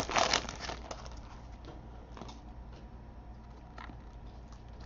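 Faint crinkling and light clicks of a foil trading-card pack being torn open and its cards handled, a little louder about the first half-second, then sparse soft ticks.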